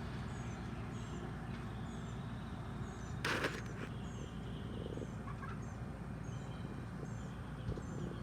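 A small bird chirping over and over: short, high chirps about once a second, over a low outdoor background. A brief rustle about three seconds in.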